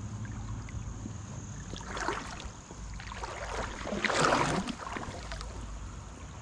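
Steady low rush of the flooded creek's flowing water. Two brief noisy swishes come about two and four seconds in, the second louder.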